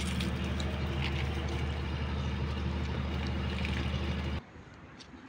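A motor running with a steady low hum, with water from a garden hose spraying onto a dog's wet coat. Both cut off suddenly about four seconds in, leaving only faint background noise.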